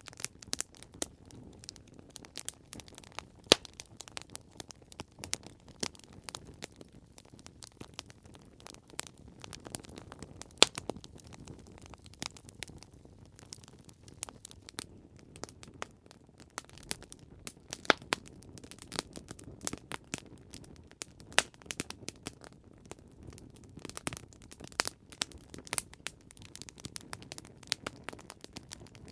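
Campfire crackling: irregular snaps and pops of burning wood over a low, steady hiss of flame, with a few sharper pops standing out.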